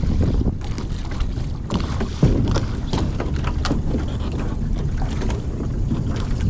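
Wind rumbling on the microphone out on open water, broken by several sharp knocks from the rowing boat, the loudest about two seconds in.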